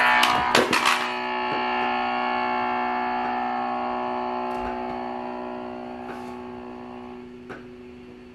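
A few sharp knocks in the first second, then a held electronic chord from a toy shirt guitar's small battery amp. The chord rings on steadily and slowly fades away.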